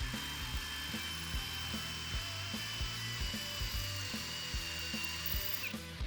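DeWalt DCD7771D2 brushless cordless drill in drill mode at speed 2, with no hammer action, boring into concrete with a multi-material bit: a steady high motor whine that drops in pitch and stops near the end.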